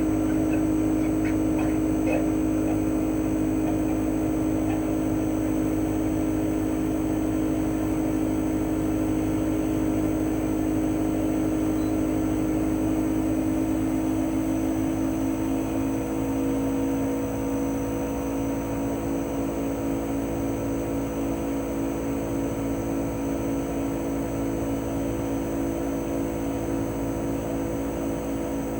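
Air-conditioner outdoor unit (CHOFU AE-2844PX) running in cooling mode: its GMCC single-rotary inverter compressor hums steadily alongside the propeller fan. About halfway through, the hum shifts slightly in pitch and takes on a slow wavering.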